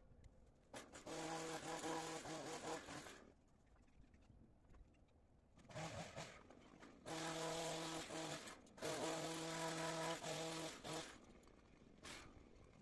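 Hedge trimmer buzzing in three short runs of a second or two each, cutting along the top of a hedge, with quieter pauses between.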